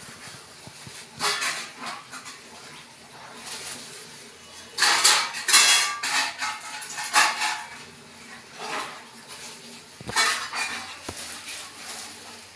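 Thin clear plastic bag crinkling and rustling in irregular bursts as a kitten moves about inside it, loudest about five to six seconds in.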